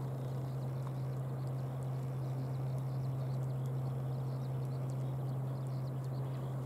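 A steady low hum that does not change in pitch or loudness, over a faint background hiss.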